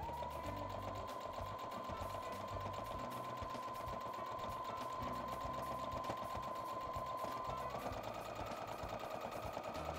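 Electric household sewing machine running steadily, stitching a seam through layers of plush fabric. Its motor whine spins up at the start and rises slightly in speed near the end.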